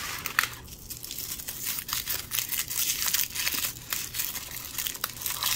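Wrapper being crinkled and pulled open by hand to unwrap a small toy accessory: dense, rapid crackling throughout, with some tearing.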